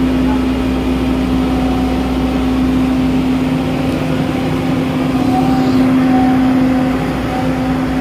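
Bobcat skid-steer loader's diesel engine running steadily as the machine drives over rough ground, a continuous low drone that swells slightly about five to seven seconds in.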